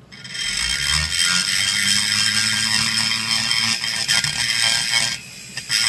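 High-speed rotary tool with a small burr grinding in the transfer passage of a Homelite XL922 chainsaw crankcase: a steady high whine over a grinding hiss. It stops a little after five seconds in and starts again just at the end.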